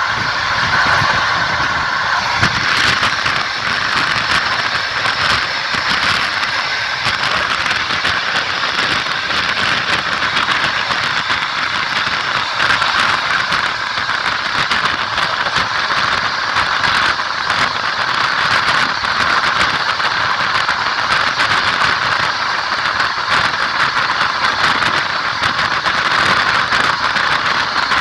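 A train running along the line, heard from the carriage window: the wheels clatter steadily over the rails, with a rushing, rattling noise.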